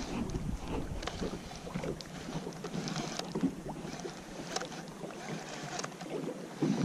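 Wind buffeting the microphone and small waves lapping against the boat's hull, with scattered light ticks and splashes. The low wind rumble eases after about two seconds.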